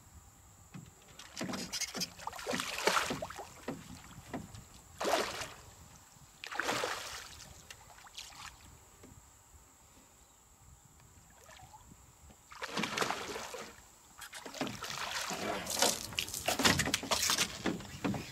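Hooked Papuan black bass splashing at the water's surface beside the boat as it is fought in, in a series of separate splashing bursts that come thicker near the end.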